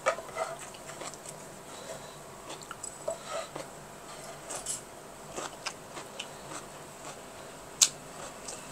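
Soft eating sounds: chewing with small clicks and taps, likely cutlery on a bowl, and one sharper click near the end.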